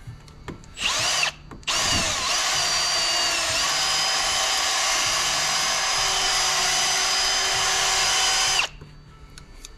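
Cordless drill spinning a hone through a 6 mm valve guide, honing it to final size for the valve stem with another pass because the guide is still too snug. A brief burst comes first, then a steady run of about seven seconds that rises in pitch as it spins up and cuts off suddenly.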